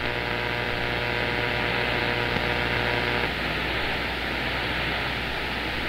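CB radio receiver hiss and static on the 11-metre band while the channel is open between transmissions, with a steady multi-tone hum that cuts off about three seconds in, leaving plain hiss.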